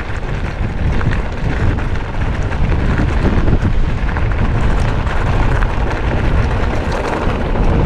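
Heavy wind rumbling and buffeting on the camera microphone while riding a mountain bike along a dry dirt singletrack, with small clicks and rattles from the bike and tyres on the trail throughout.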